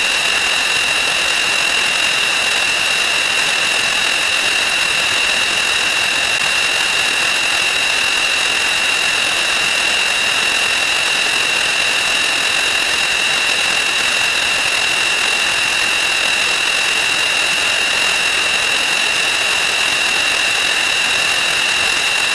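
Counting sound effects sped up 2,048 times, blurred into one continuous, even buzzing hiss with a high steady whistle-like tone over it.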